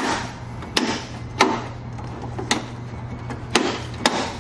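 Sharp knocks and snaps of a plastic interior trim piece in a Jeep Wrangler JKU being pushed and tapped into place, about six in all at uneven intervals, over a steady low hum.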